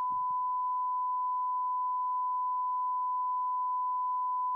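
Steady 1 kHz line-up tone from a mixing console's oscillator: a single unwavering pitch at constant level. It is the reference signal fed to an MCI JH-110 tape machine so its input VU meter can be trimmed to read zero.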